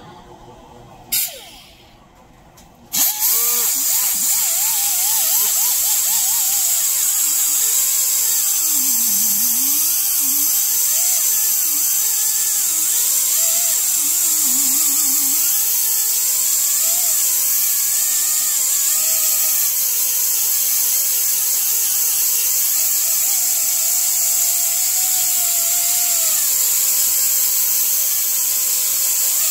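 Air-powered sander with a small sanding pad pressed against a maple disc spinning on a lathe: a loud, steady hiss, with a fainter whine that rises and falls in pitch as the pad bears on the wood. It starts about three seconds in, after a short burst of sound about a second in.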